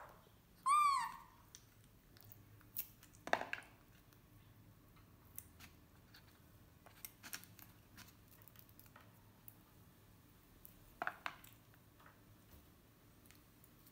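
Baby macaque gives one short, high call about a second in, rising then falling in pitch. Scattered light clicks and taps follow as it moves about its wire cage.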